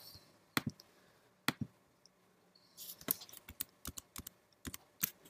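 Computer mouse and keyboard clicks: a scattered run of short, sharp single clicks, some in quick pairs, coming more often in the second half.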